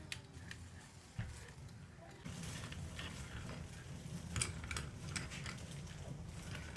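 Scattered light clicks and taps; from about two seconds in, a steady hiss sets in with many small clicks over it.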